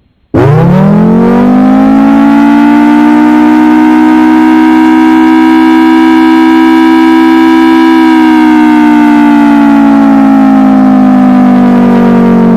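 Very loud civil defense siren winding up quickly from a low pitch to a steady wail. It holds for several seconds, then slowly winds down in pitch near the end.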